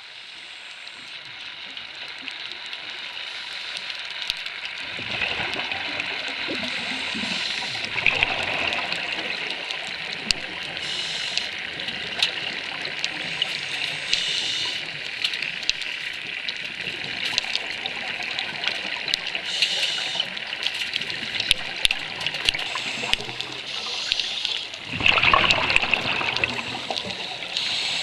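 Underwater sound of scuba divers' exhaled bubbles gurgling in several bursts, the loudest about three seconds before the end, over a steady crackling hiss.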